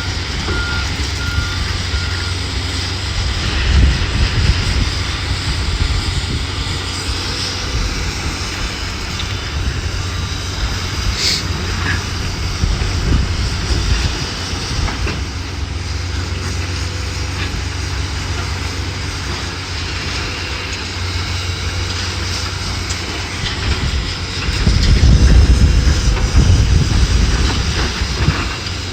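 Heavy demolition machinery's diesel engine running steadily, with a reversing alarm beeping in the first couple of seconds. A sharp clank comes about 11 seconds in, and a louder low rumble near the end.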